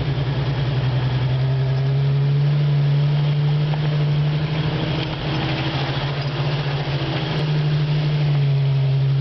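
1989 Jeep Wrangler YJ's engine running steadily as the Jeep drives along, a constant low drone heard close beside the front fender.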